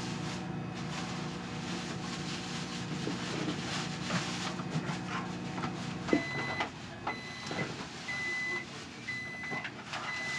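Microwave oven running with a steady hum while melting butter, stopping about six seconds in, then giving a string of beeps about once a second to signal the end of the cycle.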